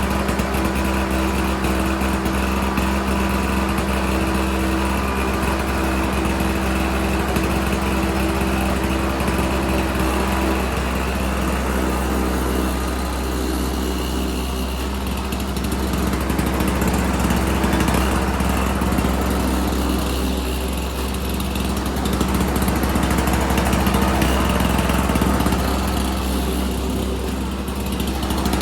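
Ariens 722 snowblower's 7 hp Tecumseh two-stroke engine running steadily just after starting, still cold and warming up.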